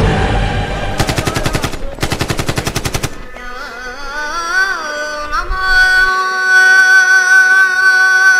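Two bursts of rapid automatic rifle fire, each about a second long, a second in and two seconds in, over film background music. A slow gliding melody follows and settles into long held notes.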